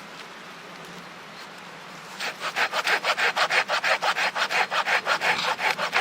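Hand saw cutting through wood with quick back-and-forth strokes, about five or six a second, starting about two seconds in.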